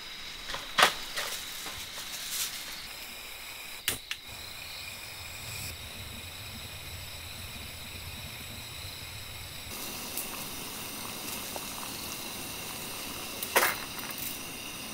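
Camp cookware being handled: a few sharp clicks and knocks of stainless utensils over a steady background hiss, then a short clatter near the end as a bundle of dry noodles is put into a stainless pot on a gas burner.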